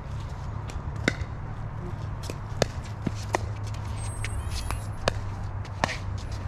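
Pickleball paddles hitting a plastic pickleball during a rally: a string of sharp, hollow pops about a second apart, with fainter pops and shoe scuffs between them.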